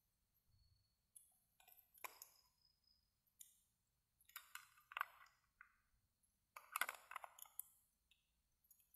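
Faint scattered clicks, clinks and small rattles of a flashlight being handled and its batteries changed.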